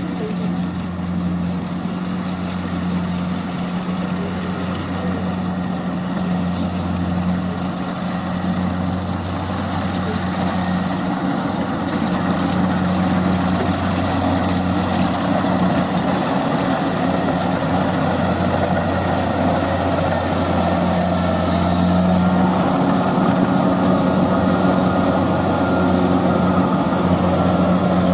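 Kubota DC-70 combine harvester's diesel engine running steadily with a constant low hum and mechanical noise over it. It grows a little louder about halfway through.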